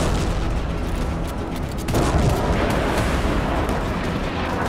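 Deep, continuous rumbling with booms, laid under background music; it swells about two seconds in.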